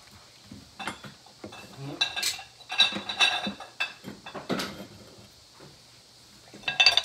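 Irregular clinks and knocks of ceramic and glass pieces being handled and set down on a table, some with a short ringing tone, busiest a couple of seconds in and again near the end.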